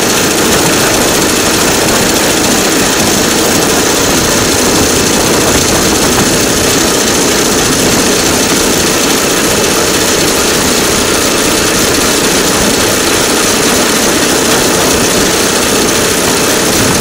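DL2 motor rail draisine running steadily along the track, its engine noise and the rattle of its wheels on the rails continuous and loud.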